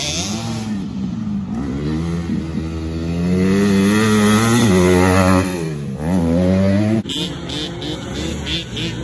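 Motocross dirt bike engine revving up and down as the rider works the throttle through a jump and a turn. The pitch climbs to its loudest and highest around four to five seconds in, drops away sharply at about six seconds, then picks up again.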